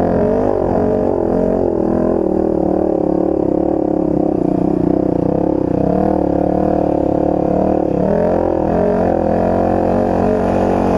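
Dirt bike engine running under load on a trail ride, its pitch rising and falling steadily with the throttle.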